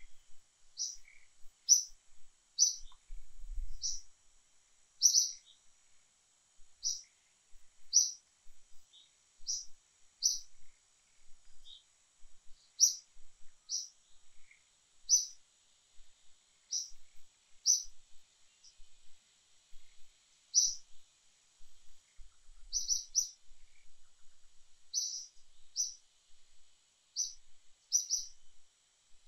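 A bird chirping over and over: short, high chirps, singly or in quick pairs, about one a second, with a faint steady high hiss behind.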